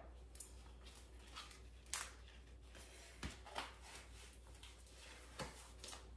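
Faint scattered clicks and rustles of a strappy high-heeled sandal being pulled onto a foot and its ankle strap fastened by hand, over a steady low hum.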